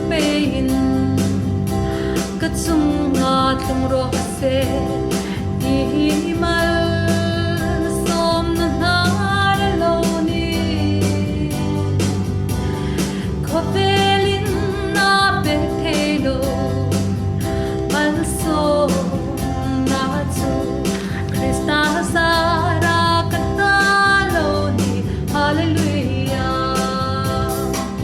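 Worship song: a singing voice carrying the melody over a guitar and a steady bass beat.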